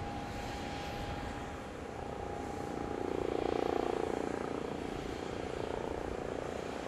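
Eurocopter EC135T2+ twin-turbine helicopter approaching to land. Its rotor sound swells to a peak about halfway through, then eases off slightly, over a steady background hum and a constant thin tone.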